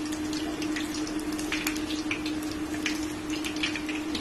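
Chicken pieces deep-frying in hot oil in a small steel saucepan: a steady crackle of many scattered pops and sizzles, over a steady low hum.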